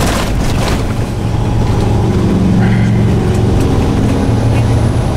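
Semi truck's diesel engine running at a steady low hum under way, heard from inside the cab together with road noise.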